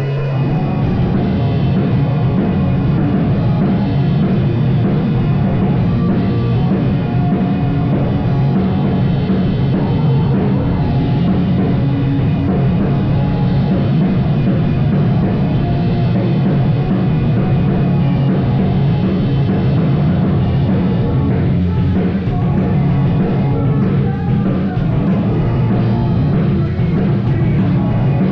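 Live rock band playing loud and steady: distorted guitars, bass and a full drum kit, with no singing heard.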